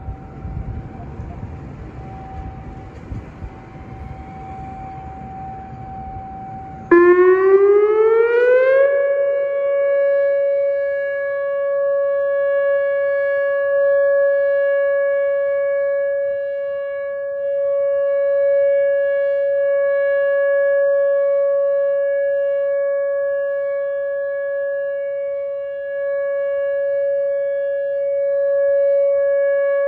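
A Whelen WPS 2905 electronic outdoor warning siren sounds its Alert signal during a monthly test. About seven seconds in it comes on loudly, rises in pitch for about two seconds, then holds one steady tone with overtones. Before it starts there is only outdoor background noise with a faint steady tone.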